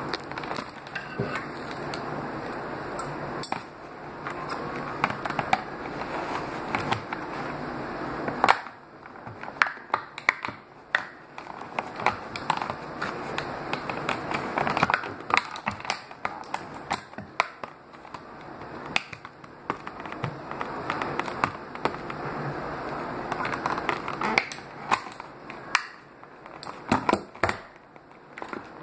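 Toy packaging being worked open: steady rustling for the first eight seconds or so, then many scattered sharp clicks and taps.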